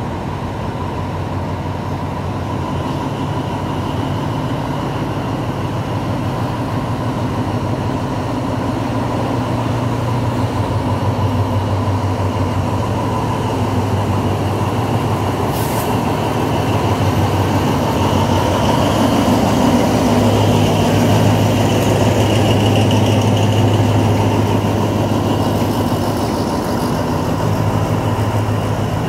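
Diesel-electric locomotive hauling a passenger train away from a station at low speed, its engine drone getting louder as it approaches and passes close by.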